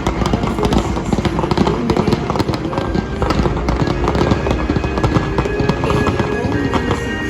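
Fireworks crackling and popping in rapid, dense bursts over the show's music playing from loudspeakers.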